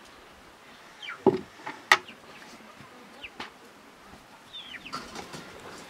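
A plastic bucket set down with two sharp knocks about half a second apart, while birds give a few short, downward-sweeping chirps.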